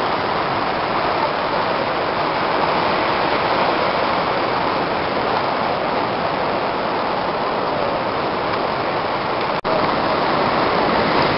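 Ocean surf washing onto a beach: a steady rushing noise that cuts out for an instant about ten seconds in.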